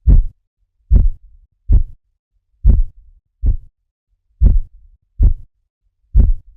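Korotkoff sounds heard through a stethoscope during a blood pressure reading: eight sharp, low thumps, one with each pulse beat, about 0.8 s apart (around 75 a minute). The last thump comes just before the end.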